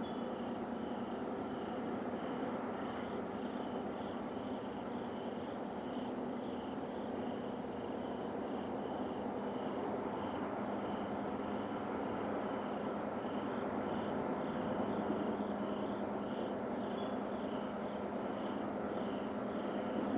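Loud, steady rumbling drone coming from the sky, with no clear pattern. Its source is unidentified. A faint high chirp repeats about twice a second over it.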